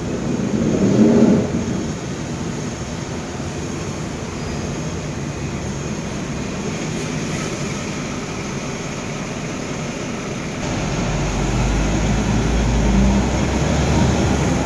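Hong Kong double-decker tram running along the street, heard from on board as a steady running noise. There is a louder swell about a second in, and a deeper rumble builds over the last few seconds.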